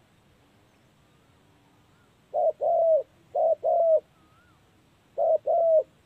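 Spotted dove cooing: three short phrases, each a short note followed by a longer note that drops at its end, the first about two seconds in and the last near the end. Faint chirps of another bird sound between them.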